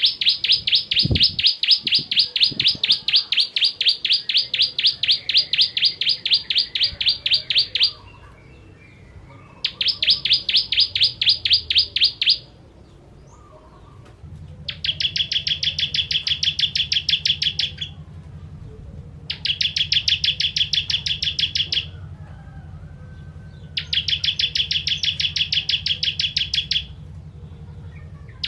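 Bar-winged prinia (ciblek kristal) singing five fast trills of sharply repeated high notes, separated by short pauses. The first trill is the longest, about eight seconds, and the later ones are shorter and lower.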